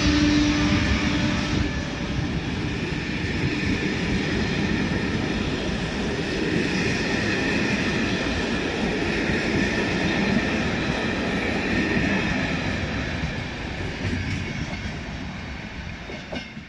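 ČD class 362 (Škoda 69Em) electric locomotive hauling passenger coaches past on departure: a steady tone from the locomotive stops about a second in, then the coaches' wheels rumble and clatter over the rail joints, fading as the train pulls away.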